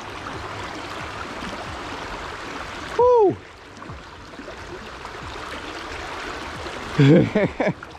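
Steady rush of flowing river water. About three seconds in a short voice sound falls steeply in pitch, and brief indistinct voices come near the end.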